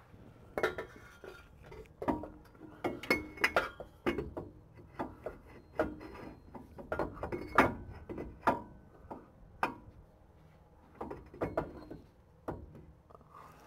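Irregular metallic clinks and knocks as a rear CV drive shaft is manoeuvred into place, its inner joint and flange bumping against the diff and the underbody while being lined up. The loudest knock comes about halfway through.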